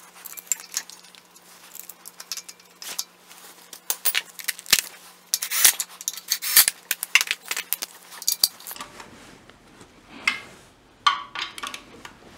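Metal tools and parts clinking and a socket ratchet clicking as the bolts of a belt tensioner pulley are run into the front of the engine's oil pan. Sharp clicks come thick and fast through most of it, thinning to a few separate clicks near the end.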